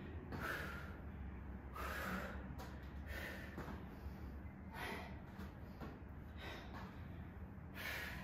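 A woman breathing hard through a set of kettlebell side lunges, with a short, forceful exhale about every second and a half, in time with her reps. A faint steady low hum runs underneath.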